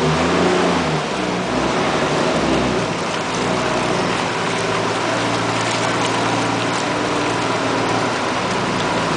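A motor vehicle engine running, its low tone shifting in pitch, over a steady wash of noise from the flooded street's water.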